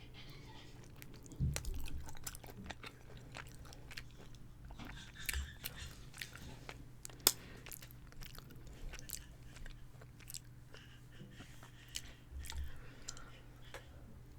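Close-miked chewing and biting of chicken parmesan, with irregular wet mouth clicks and small crunches and one sharp click about seven seconds in. A faint steady low hum lies underneath.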